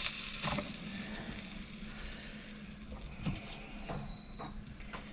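A few scattered light clicks and knocks of tools being handled on a plumbing fitting, over a faint steady hum.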